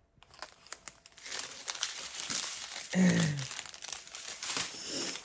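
Small plastic bags of diamond-painting drills crinkling and rustling as they are handled and sorted. A short falling vocal murmur comes about three seconds in.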